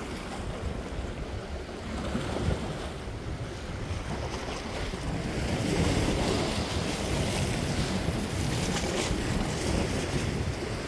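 Sea waves washing against shoreline rocks, with wind buffeting the microphone as a low rumble.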